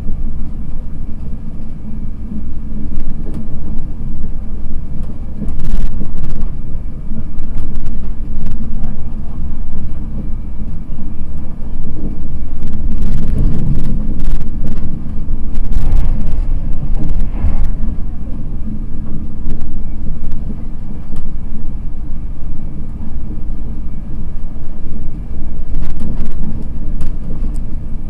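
Steady low rumble of an East Coast InterCity 225 express coach running at speed, heard from inside the passenger saloon, with a few brief knocks about six seconds in, around the middle and near the end.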